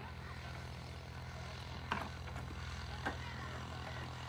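An engine runs with a steady low hum, and two short sharp knocks sound about two and three seconds in.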